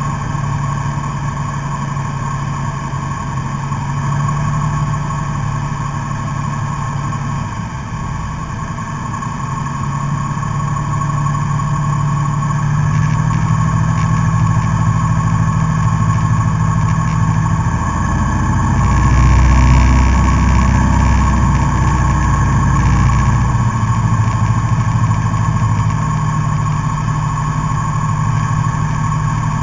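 A Cessna's single piston engine and propeller droning steadily, heard from inside the cockpit. About two-thirds of the way through the low rumble grows louder for a few seconds.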